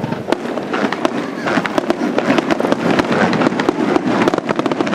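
Aerial fireworks bursting in a dense, fast barrage: many sharp bangs and crackles a second, overlapping without a break.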